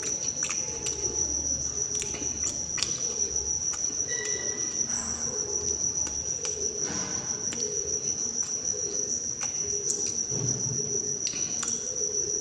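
A cricket trilling on one steady, unbroken high note, over the chewing and mouth noises of a person eating with his fingers.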